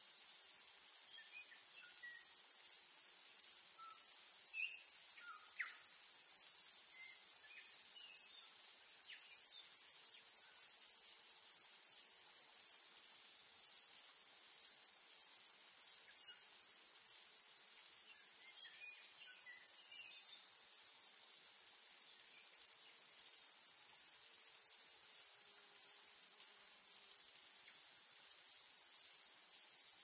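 A steady, high-pitched chorus of insects, with short bird chirps now and then, mostly in the first third and again about two thirds of the way through.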